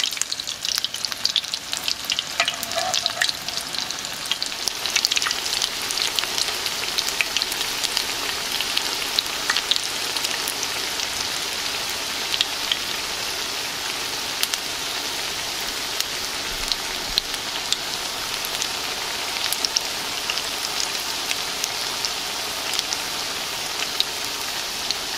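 Breaded potato cakes shallow-frying in oil in a cast-iron skillet: a steady sizzle with frequent small pops and crackles.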